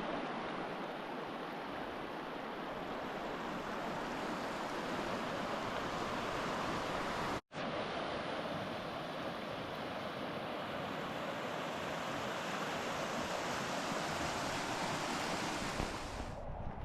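Steady rushing of water, like a stream running over rocks, with an instant dropout about seven and a half seconds in.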